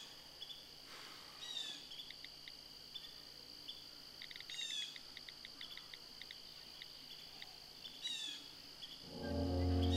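Outdoor ambience of insects and a bird: a steady high insect drone with short chirping pulses, and a bird's quick falling call three times. Music fades in near the end.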